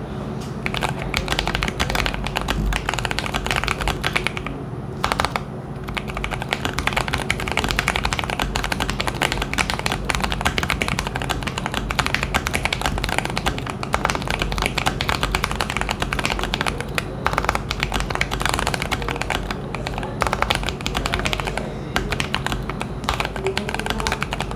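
Steady typing on a Keychron Q1 mechanical keyboard with lubed Lilac tactile switches, an FR4 plate, tape mod and all foams installed: a dense run of keystrokes with a brief pause about five seconds in.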